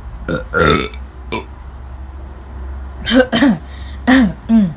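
A person's burping sounds: a rough one about half a second in, then three or four short ones falling in pitch near the end.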